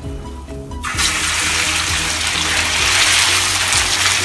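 Marinated beef slices hitting hot oil in a wok and sizzling: a loud, steady hiss that starts suddenly about a second in. The oil is hot enough to sear the meat.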